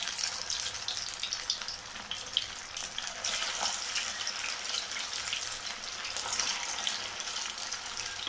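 Aval (poha) vadai deep-frying in hot oil in an aluminium kadai: a steady sizzle with many small crackles and pops.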